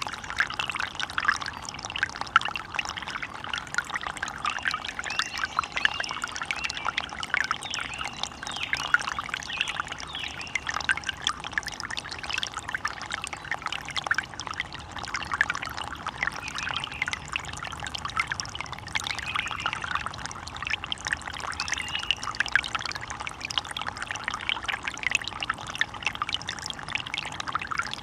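Running water in a small stream, trickling and splashing steadily over stones.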